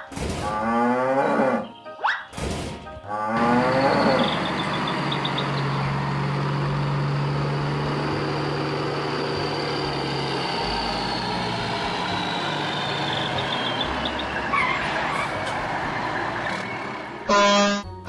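Cartoon cow mooing twice with falling pitch, then a truck engine running steadily with a low hum. A brief loud tooting sound comes near the end.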